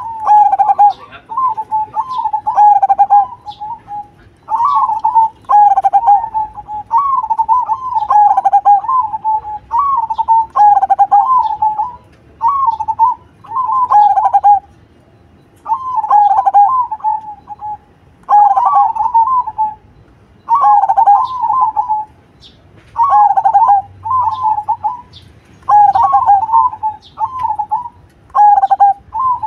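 Zebra dove (perkutut) cooing: a rapid, wavering string of coo notes in repeated phrases of about one to two seconds, separated by short pauses.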